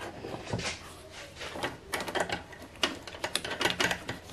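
Hard plastic engine-bay parts clicking and knocking as a gloved hand handles and seats them: irregular light clicks and taps.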